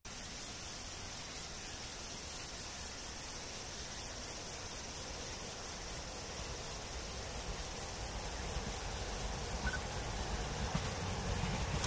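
Insects chirping steadily in an even pulse of about four a second, over a low rumble. Near the end the noise of an approaching E257 series limited express train starts to rise.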